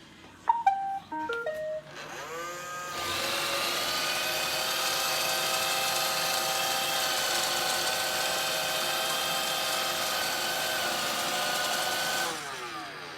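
Roomba 618 robot vacuum plays a short tune of beeps, then its vacuum and brush motors spin up to a steady high whine, run for about nine seconds, and wind down near the end.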